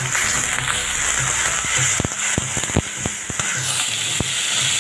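Shallots and freshly added ginger-garlic paste sizzling in hot oil in an iron kadai, with a steady crackling hiss. A metal slotted spatula stirs them, clicking and scraping against the pan several times between about two and three and a half seconds in.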